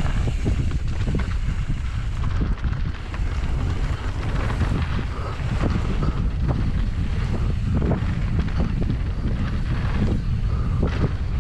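Wind buffeting the camera microphone as a downhill mountain bike rides fast down the trail, with the bike knocking and rattling over the rough ground throughout.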